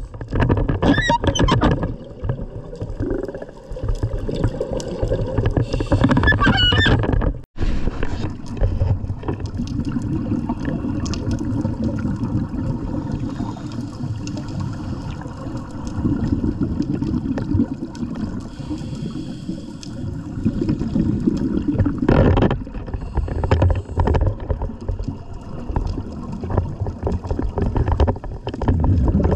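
Scuba diver's regulator heard underwater: gurgling bursts of exhaled bubbles, with a steady low rumble between breaths. The sound cuts out sharply for a moment about seven and a half seconds in.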